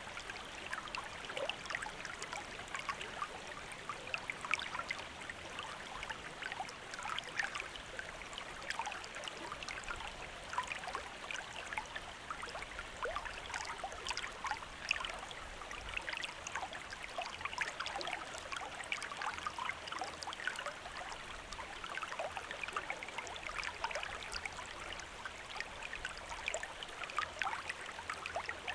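Small river stream flowing steadily, water trickling and splashing over stones with many quick little splashes.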